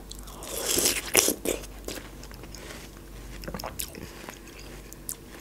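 A person biting into a chunk of watermelon and chewing it close to a clip-on microphone: a burst of crunching in the first second and a half, then quieter chewing with a few scattered clicks.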